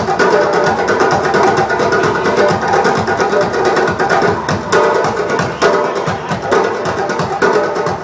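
Upbeat background music with a steady percussive beat, wood-block-like knocks and sustained melodic tones.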